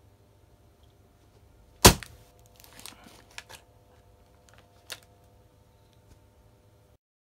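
A homemade hammer-mounted stake strikes a wooden board through a paper target with one sharp, loud bang, then scrapes and rattles as it is levered out at an angle, with a last sharp click.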